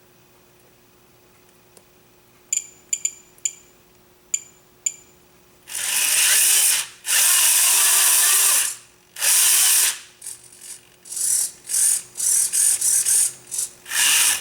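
An RC-converted Bruder bulldozer's small electric motors and gearboxes whirring in stop-start bursts, some a couple of seconds long and some very short, as its functions are worked from the transmitter. A few short clicks come first.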